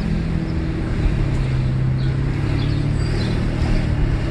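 Mercedes-Benz S600 W140's V12 engine and loud exhaust running while the car drives, heard from inside the cabin. The engine note drops slightly about a second in.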